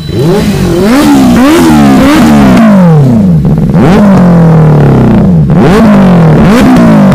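Benelli 600i's 600 cc inline-four engine being revved hard through its exhaust: quick throttle blips that rise and fall back about twice a second, with one longer held rev near the middle.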